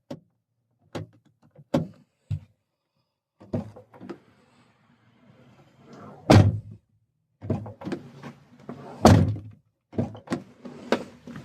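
Car door clicks and knocks, with two loud thunks about six and nine seconds in, typical of a door being shut.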